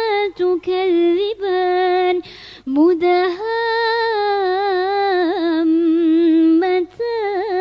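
A girl's voice chanting Quranic recitation in a melodic style. She draws one word out into a long held note that wavers slightly before the next phrase begins.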